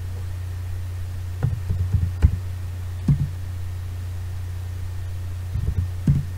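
Computer keyboard keystrokes heard as dull knocks over a steady low electrical hum: a quick run of about four keystrokes about a second and a half in, a single one about three seconds in, and a short run of three near the end, as numbers are typed into a form.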